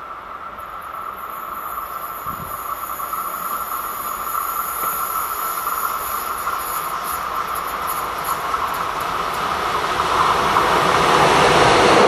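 DB class 140 electric locomotive hauling a coal train of hopper wagons, approaching and growing steadily louder until it passes close by near the end. A steady whine sits over the rising rumble of wheels on rail.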